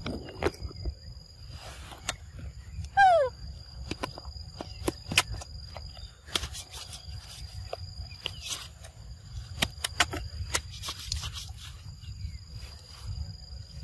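Young macaque eating fruit, with irregular wet chewing and smacking clicks. A steady high insect buzz comes and goes behind it, and one short falling call stands out about three seconds in.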